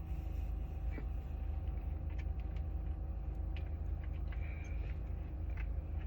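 A long draw on a vape, held as a 'blinker' until the device blinks: faint scattered crackles and clicks over a steady low hum.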